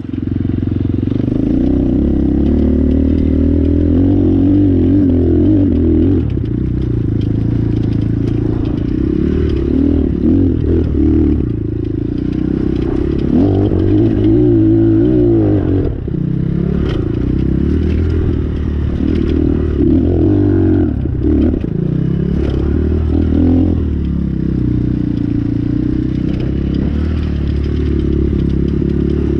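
2019 Apollo 250RX's engine running while it is ridden, its pitch rising and falling as the throttle opens and closes, with a few sharp knocks and clatter from the machine over the ground.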